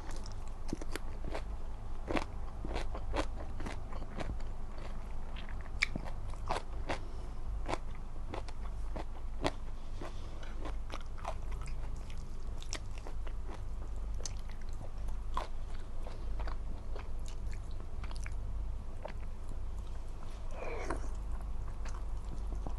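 Close-miked eating: a person biting and chewing food, with many irregular small crunches and clicks, and a short throaty sound near the end.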